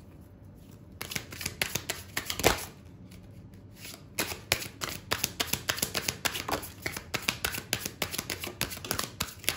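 Tarot cards being shuffled by hand: a quick run of soft card clicks and flicks starting about a second in, with one louder snap, a short pause near the middle, then steady rapid clicking again.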